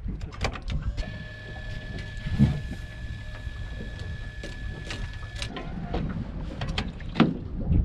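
Wind buffeting the microphone over water around a boat, with a few sharp knocks about two and a half seconds in and near the end. A steady high-pitched whine runs from about a second in until about five and a half seconds, then cuts off.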